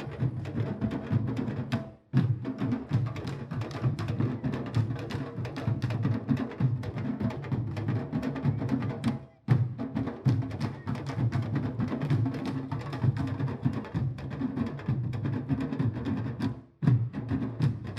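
A candombe drum troupe playing together: the hand-and-stick drums of a comparsa (chico, repique and piano) in a dense, driving rhythm of many quick strikes. The sound drops out very briefly three times.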